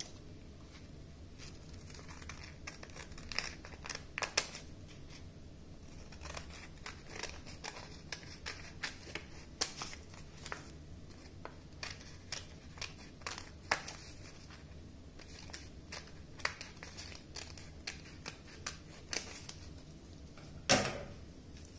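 Scissors snipping through folded paper in short, irregular cuts, with the paper rustling as it is turned. A single louder knock comes near the end.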